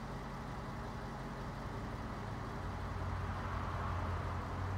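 Pellet stove's exhaust blower running with a steady low hum that grows louder about two and a half seconds in, pushing thick smoke out of the vent pipe while the stove is still starting up and the pellets have not yet caught.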